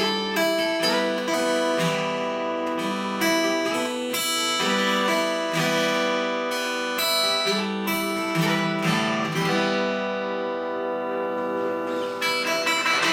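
Acoustic guitar playing a fingerpicked instrumental outro, with single notes and chords ringing and changing every half second or so.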